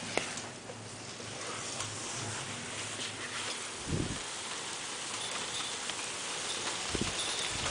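Steady thunderstorm rain falling, with two short dull thumps, one about halfway through and one near the end.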